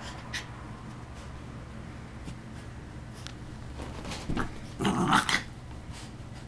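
A West Highland white terrier gives two short vocal sounds, a brief one about four and a half seconds in and a louder one about five seconds in, over faint rustling of a wet puppy rolling and rubbing himself dry on a towel.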